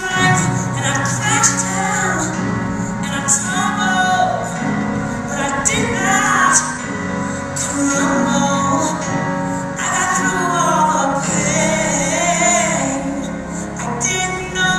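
A song with a female lead vocal over a steady accompaniment plays throughout.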